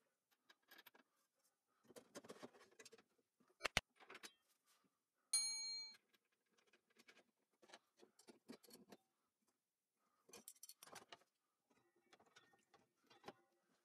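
Faint clicks and knocks of metal parts being handled as a saw blade and its throat insert are fitted into a table saw, with one sharper click near four seconds in. About five seconds in, a short metallic ding rings and dies away within a second.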